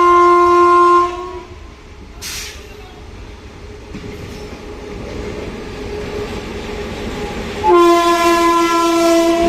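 Indian Railways locomotive horn sounding twice: a loud blast of about a second at the start, then a longer blast near the end. Between the blasts the rumble of the approaching train grows steadily louder.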